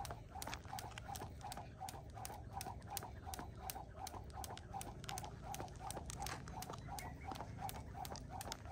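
Skipping rope turning steadily, ticking on the ground at each pass in a quick, even rhythm.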